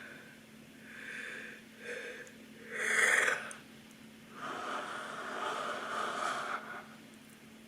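A woman yawning deeply: a couple of short breaths, a loud intake of breath about three seconds in, then a long breathy exhale lasting over two seconds.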